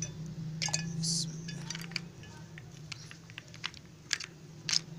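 Ice cubes dropped into a glass jug of water, a series of sharp clinks against the glass, with smaller clicks in between and the loudest two near the end.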